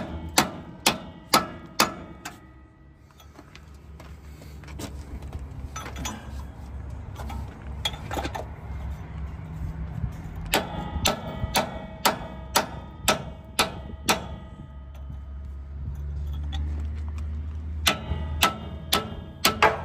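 Steel hammer striking a punch or chisel against the seized spindle nut of a trailer axle hub, evenly about two blows a second with a ringing metallic clang; the nut is being cut off because the wheel bearing has burned up. The hammering pauses for several seconds in the middle, resumes about ten seconds in, and again near the end.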